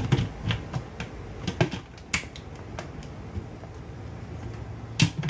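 Irregular plastic clicks and knocks from handling a blender's jar and lid as it is seated on its base, with one louder knock about two seconds in and another near the end. The motor is not running.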